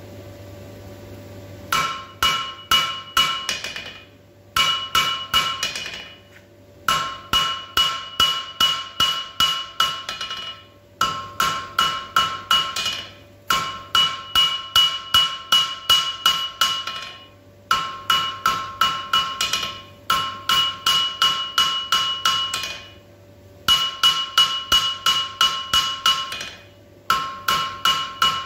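Blacksmith's hand hammer striking a red-hot railway spike on a steel anvil while drawing out a taper: runs of about three to four blows a second, each ringing, broken by short pauses every few seconds.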